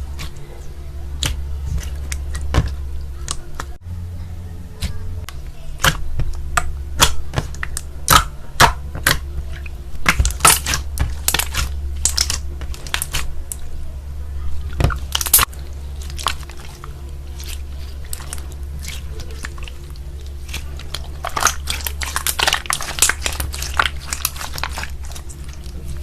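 Slime being squeezed, pressed and stretched by hand, giving irregular crackling pops and clicks, with a dense flurry of crackles near the end. A steady low hum runs underneath.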